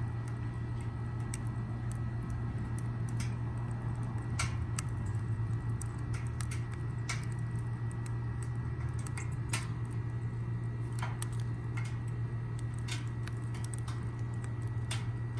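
Wood fire crackling in a DIY gasifier stove: irregular sharp pops and snaps over a steady low rumble.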